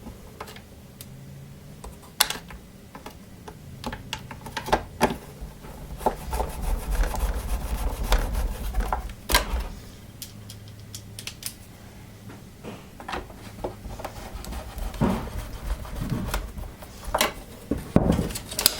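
Plastic parts of a Miele S5210 vacuum cleaner's body being handled and fitted by hand: irregular clicks, knocks and rubbing, with a low rumble for a few seconds in the middle.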